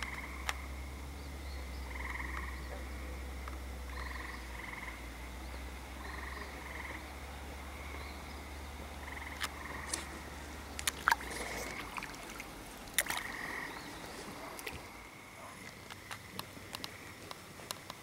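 Frogs calling across a lake: short calls about half a second long, repeating every second or so, over a steady chorus. A cluster of sharp clicks comes about halfway through, and a low rumble stops about three-quarters of the way in.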